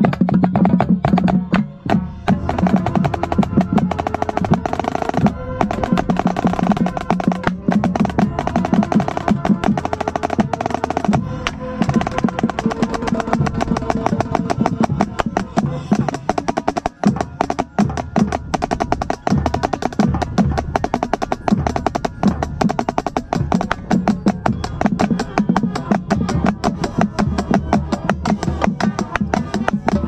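Marching snare drum with an Evans head played close up: fast, dense stick strokes and rolls, with the other drums of the line and sustained pitched notes from the ensemble underneath.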